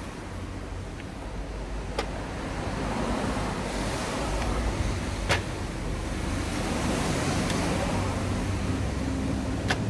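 Hands working around a car's engine bay at the valve cover and wiring harness: a steady noise with a few sharp clicks of parts being handled, spaced a few seconds apart.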